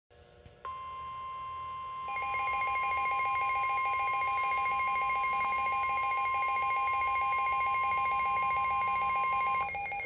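Midland NOAA Weather Radio receiver going off for a severe thunderstorm warning. The broadcast's steady 1050 Hz warning alarm tone starts just under a second in. About two seconds in, a rapidly pulsing alert beep joins it. The steady tone stops shortly before the end.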